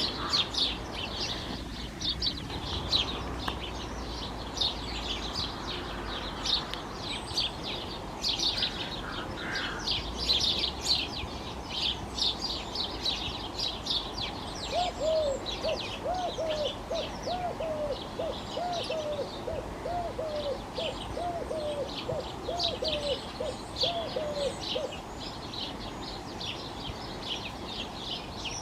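House sparrows chirping busily throughout. About halfway through, a collared dove joins in, cooing a steady run of repeated low notes for roughly ten seconds.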